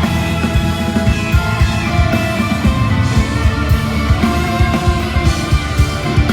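A live rock band playing loudly, with a steady drum beat under bass and guitar.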